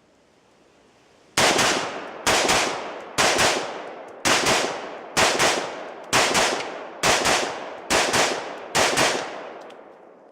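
Semi-automatic AR-15 pistol in 5.56/.223 firing nine single shots of .223 Tula ammunition, about one a second, starting about a second and a half in. Each shot has a quick echo and a decaying tail.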